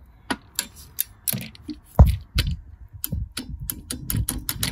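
Irregular metallic clicks and ticks of a ratcheting torque wrench and socket being worked onto a small bolt at a cramped turbocharger pipe flange, with one louder knock about two seconds in.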